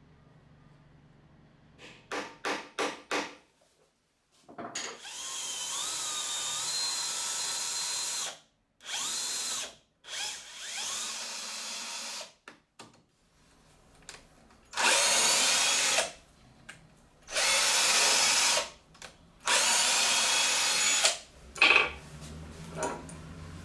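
Cordless drill boring holes into plywood. It starts with a few quick trigger blips, then runs in a series of stops and starts lasting a second to a few seconds each, with a steady high motor whine under load. The last three runs are louder.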